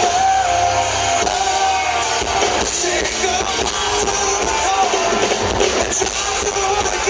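Live rock band playing a song at full volume, with some singing.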